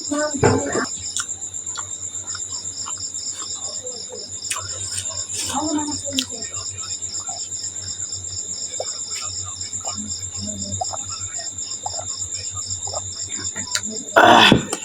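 Crickets chirping in a steady, rapid pulsing trill, under soft chewing and small clicks of someone eating momos. A brief louder noise comes near the end.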